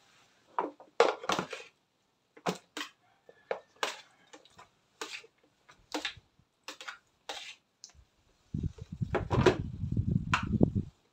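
Metal spoon scraping raw pork pieces off a metal tray into a plastic tub: a string of separate clicks and knocks. Near the end comes a louder stretch of low rumbling and knocking, about two seconds long, as the pork is worked in the plastic tub.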